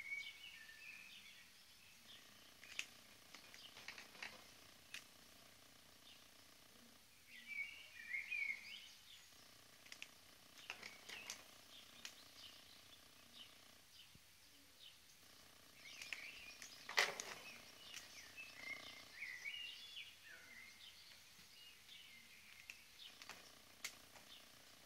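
Faint birds chirping off and on in short bursts of high chirps, with a few soft clicks and taps, the sharpest about two-thirds of the way through.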